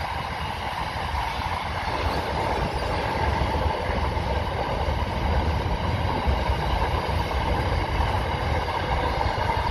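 Grain hopper wagons of a freight train rolling across a girder rail bridge: a steady rumble of steel wheels on the rails with a higher ringing note above it, growing a little louder about two seconds in.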